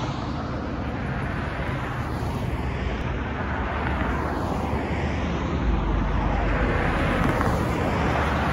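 Road traffic passing close by: a steady rush of tyres and engines, with several cars in turn swelling and fading as they go past.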